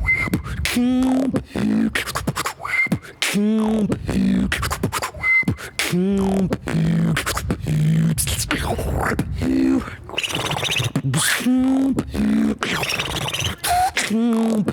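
Solo beatbox routine: mouth-made drum hits, kicks and snares in a quick rhythm, over a hummed bass line of held notes that step in pitch and now and then glide.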